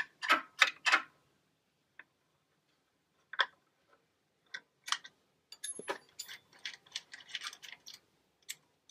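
Hand wrench working the treadmill motor's mounting nut and bolt. It gives three sharp metal clicks in the first second, about three a second, then scattered single clinks, and from about halfway a dense run of small metal clicks and clinks as the loosened nut and bolt are handled.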